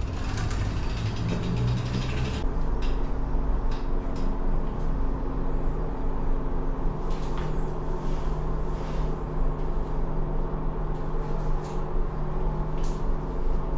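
A vehicle engine running at a steady speed, heard on board over a heavy low rumble of wind and road. A bright hiss that overlays it cuts off about two and a half seconds in.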